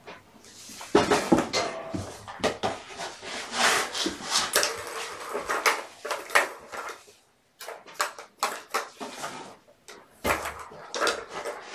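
Plastic balls rattling and clicking around a tiered cat track toy as a kitten bats at them: a run of quick clatters with a short pause a little past halfway.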